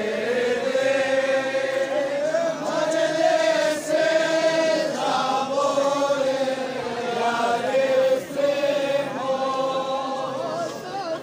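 Men's voices chanting a Shia mourning lament (noha) with long, drawn-out lines.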